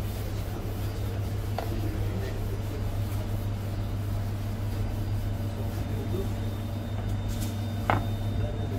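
Steady low mechanical hum with a knife clicking on a plastic cutting board twice as a boiled egg is sliced, the sharper click near the end.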